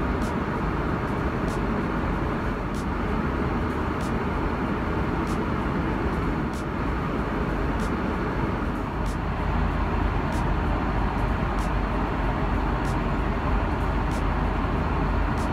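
Airbus A340-600 cabin noise in cruise: a steady rumble and hiss of airflow and the four engines.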